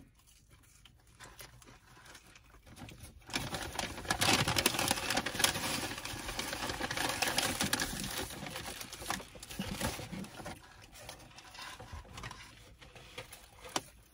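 Paper fast-food wrappers and bag crinkling and rustling as food is handled, with chewing. It starts suddenly about three seconds in, is loudest for the next few seconds, and thins out after about ten seconds.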